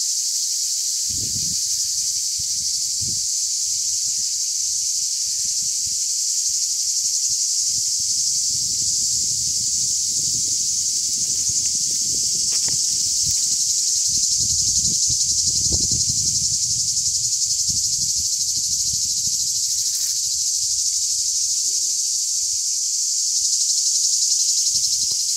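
A dense chorus of cicadas buzzing steadily at a high pitch, with intermittent low rumbles underneath.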